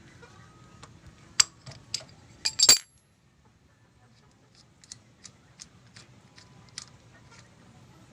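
Metal tools and motorcycle parts clinking and tapping against each other as a part is being taken off: a run of sharp, loud clinks about a second and a half in, then lighter scattered ticks.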